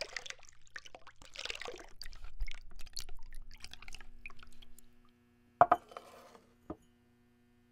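Liquid pouring and trickling into a glass vessel with small clinks, then a sharp double knock of glass about five and a half seconds in and a lighter knock a second later, over a faint steady low hum.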